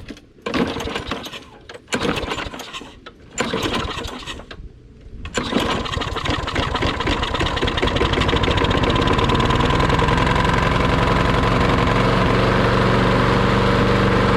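Push lawn mower's small engine being pull-started: a few pulls on the recoil starter crank it over, then about five seconds in it catches and keeps running, settling into a steady run. The mower has sat unused for years and runs with its air filter removed.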